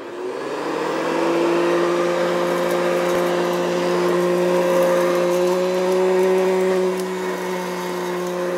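Shark handheld vacuum cleaner running with a steady motor whine over a rushing hiss, a little quieter about seven seconds in.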